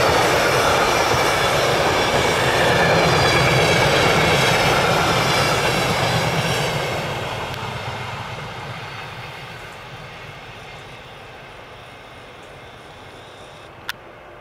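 Electric-hauled passenger train's carriages rumbling along the rails with a faint ringing, then fading steadily into the distance as the train draws away. A single sharp click sounds near the end.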